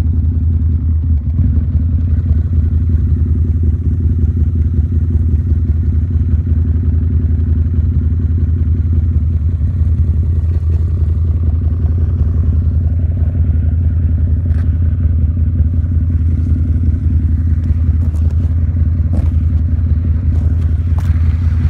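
Harley-Davidson Night Rod Special's liquid-cooled V-twin engine running steadily, heard muffled from inside a pocket.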